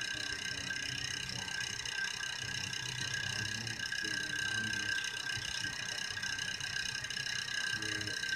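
Steady background whine made of several high-pitched tones held at a constant pitch, over a faint low rumble, with no distinct event standing out.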